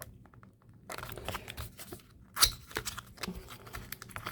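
Crinkly plastic cookie wrapper being handled and torn open, with irregular crackles and one sharper snap about two and a half seconds in.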